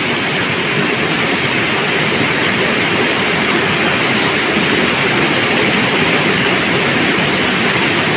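Steady rush of water pouring through a river dam: one even, continuous noise with no breaks.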